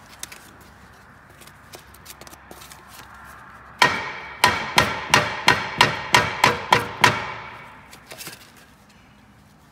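A ball-peen hammer striking a Tesla Model S rear brake disc that is stuck fast on the hub: a run of about ten blows, roughly three a second, each leaving the metal disc ringing, then a few light taps.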